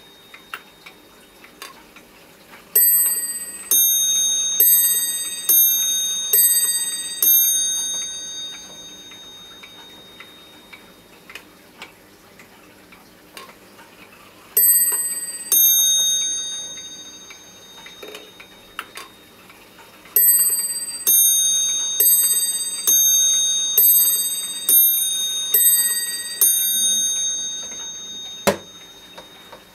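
Metamec 8-day pendulum wall clock ticking while its chime plays three runs of notes, each note ringing and dying away: about six notes a few seconds in, two in the middle, and about eight near the end, set off by the minute hand being moved on. A single sharp knock near the end.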